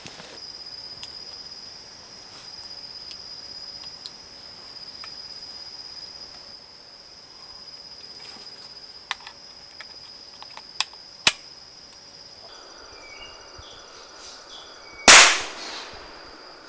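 Steady high insect drone with a few sharp clicks, then a single loud gunshot from a muzzle-loading hunting gun near the end, dying away over about half a second.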